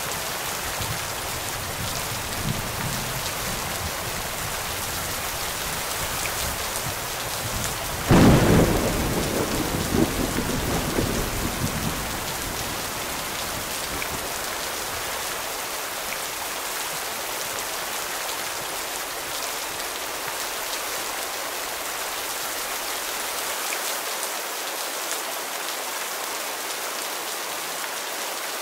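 Steady rain falling, with one sudden clap of thunder about eight seconds in that rumbles for a few seconds and dies away, leaving the rain alone.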